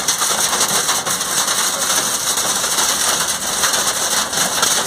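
Hail and heavy rain pelting a car's roof and windshield, heard from inside the cabin: a dense, steady clatter of many small impacts.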